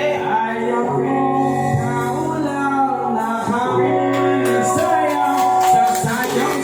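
A live band playing a song with a singer, amplified through a PA system.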